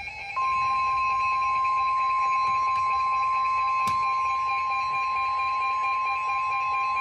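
NOAA Weather Radio's 1050 Hz warning alarm tone: one steady, unbroken tone starting about half a second in, over faint radio hiss. It signals that a warning message is about to be broadcast.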